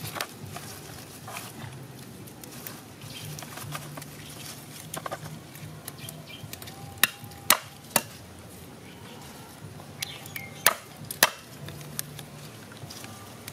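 Knife chopping on a wooden chopping board: sharp single chops, the loudest coming in two runs of three about half a second apart.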